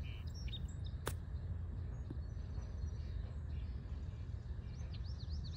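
A golf chip shot with a 56-degree wedge: one sharp click of the clubface striking the ball about a second in. Small birds chirp over steady low background noise, with a run of quick chirps near the end.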